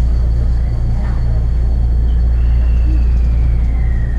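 Steady low hum of a stationary electric commuter train's onboard equipment, heard from inside the car while it stands at the platform. A faint thin tone slides down in pitch from about two seconds in.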